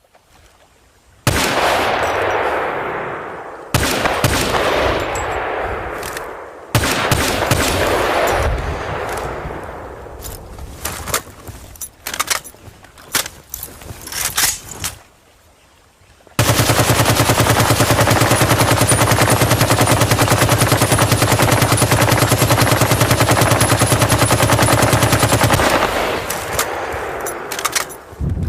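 RPK light machine gun firing. A few loud reports with long echoing tails, then scattered single shots, then one long unbroken burst of automatic fire lasting about nine seconds that stops abruptly and echoes away.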